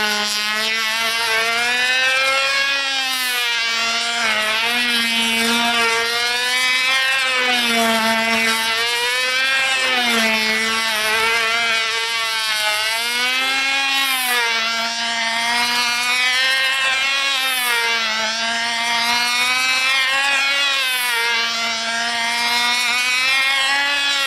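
Model airplane's Fox .36X two-stroke glow engine running at high speed in flight, a steady buzz whose pitch rises and falls over and over as the plane flies toward and away from the listener.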